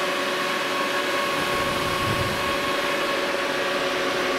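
Antminer D3 ASIC miner's cooling fans running: a steady, loud, vacuum-cleaner-like rush of air with a constant whine of several steady tones on top. The machine is in its quiet mode.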